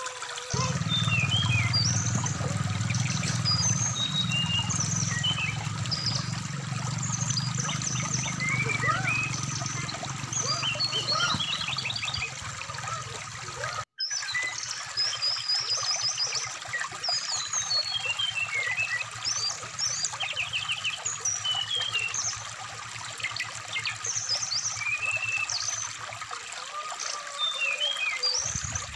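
Brown-chested jungle flycatcher (SRDC) singing a busy string of short high whistles, chirps and rapid trills over the rush of stream water, with a brief break in the sound about halfway through.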